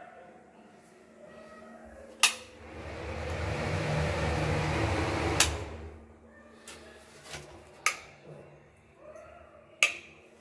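A wall switch clicks and an Anchor kitchen exhaust fan starts up, its hum and rush of air rising for about two seconds and then holding. A second click about three seconds later cuts it off and the noise dies away. A few lighter clicks follow.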